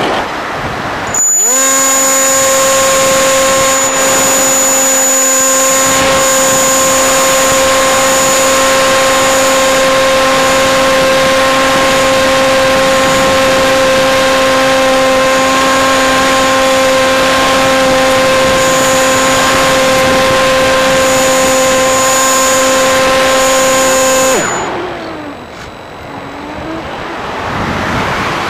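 RC model plane's electric motor and propeller heard from the onboard camera: it spins up about a second in to a loud, steady hum with a thin high whine above it, holds the same pitch, then is throttled off near the end and winds down. Rushing wind over the airframe fills the seconds before and after, while the plane glides.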